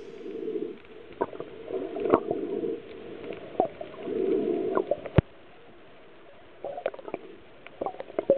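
Muffled underwater sound: swells of water rushing and gurgling with scattered sharp clicks, one louder click about five seconds in followed by a short lull.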